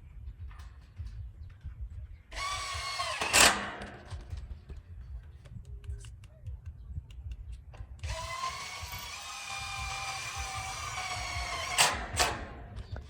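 Handheld electric power tool running in two bursts: a short one about two seconds in and a longer one of about four seconds starting about eight seconds in. Each is a steady whine that ends in a sharp loud spike. A low rumble and scattered knocks run underneath.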